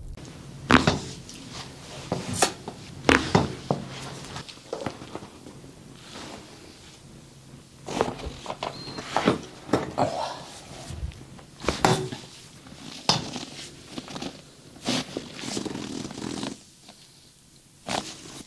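Hands-on massage with joint manipulation: a string of about a dozen sharp cracks and knocks, spaced irregularly, over rustling of clothing and bodies being moved.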